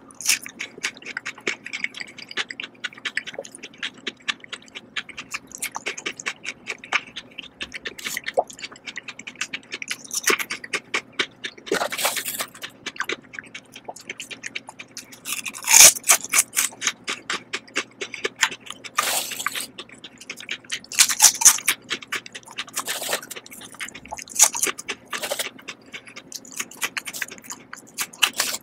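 Close-miked mouth sounds of eating: wet chewing of a piece of Korean melon, then crunchy bites into potato chips, a loud crunch every couple of seconds from about twelve seconds in, with chewing between.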